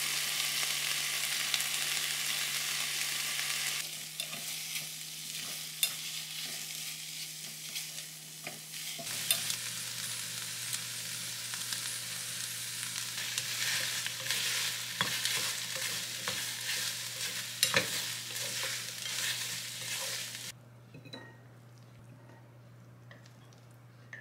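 Diced chicken breast and vegetables sizzling in a ceramic-coated frying pan as a spoon stirs them, with sharp clicks and scrapes of the spoon against the pan. About twenty seconds in the sizzling cuts off, leaving only a few light taps.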